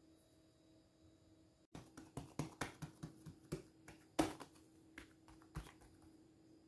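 A palm pressing and patting a strip of soft ensaimada dough flat on a paper-lined table. It gives a string of soft taps and paper rustles, about two or three a second, starting about two seconds in, the loudest a little past four seconds.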